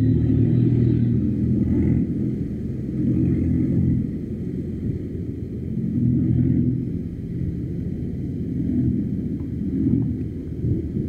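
Low vehicle rumble, swelling and easing about every two to three seconds.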